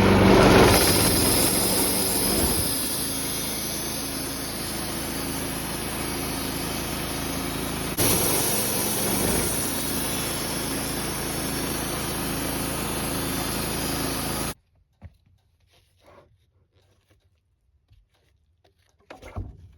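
Woodmizer LT15 bandsaw mill running, its new band blade sawing through a spalted alder log with a steady engine hum. The sound cuts off abruptly about two-thirds of the way through, leaving near quiet with a few faint clicks.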